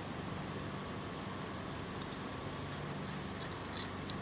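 Crickets chirring as one steady high-pitched tone, over a low steady background hum, with a couple of faint ticks near the end.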